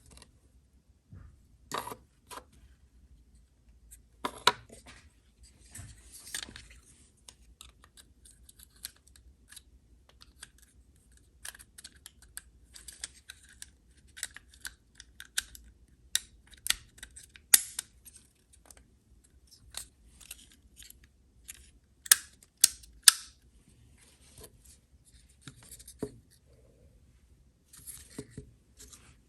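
Irregular small clicks, taps and short scrapes of hand work on a car headlight switch and its terminals, loudest in a cluster of sharp clicks a little over twenty seconds in.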